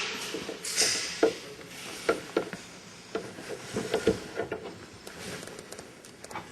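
Scattered light knocks and clicks at irregular intervals, after a short hiss about a second in.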